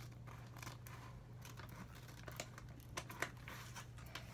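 Scissors cutting paper, a handful of soft snips and paper rustles.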